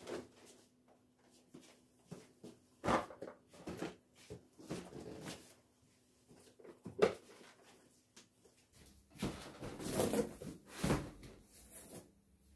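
Household handling sounds: a series of irregular knocks, clicks and rustles, busiest about nine to eleven seconds in.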